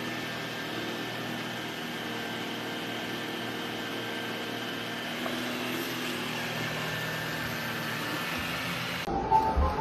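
Robot vacuum running with a steady motor hum and brush whir. About nine seconds in it cuts off abruptly and music starts.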